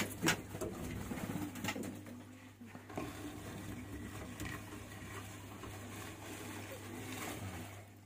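A few knocks and scrapes from a hollow wooden log nest box being handled, the sharpest near the start, over a steady low hum. Low pitched sounds come and go in the background.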